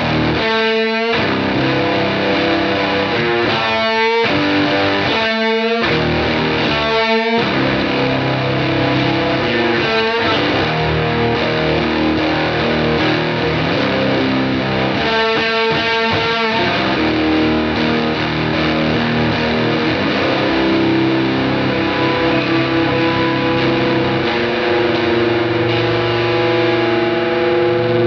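Fender Jazzmaster electric guitar with Alnico 2 pickups, played overdriven: sustained, ringing chords and notes, some of them wavering in pitch.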